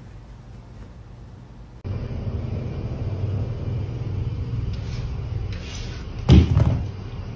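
A steady low rumble that starts suddenly about two seconds in, then one loud thump near the end.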